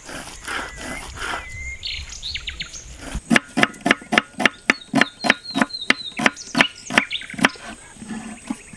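Birds chirping, then from about three seconds in a run of quick, evenly spaced knocks, about four a second, which are the loudest sound.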